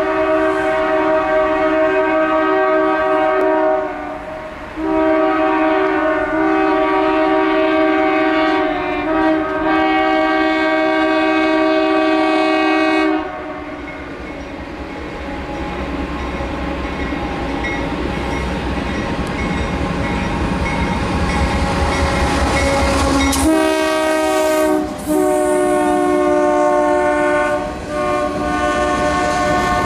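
GE AC4400CW diesel locomotive's air horn blowing its chord in long blasts: one breaks off about 4 s in, and the next is held to about 13 s. Then the train's rumble grows as it approaches and passes without the horn. Near the end the horn sounds again, a short blast then a long one, as loaded hopper cars roll by with a clickety-clack.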